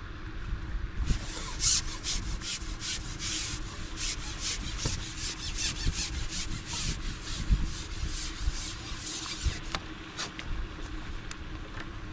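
A run of quick rasping rub strokes, several a second, that stops about nine and a half seconds in, over a steady low background rumble.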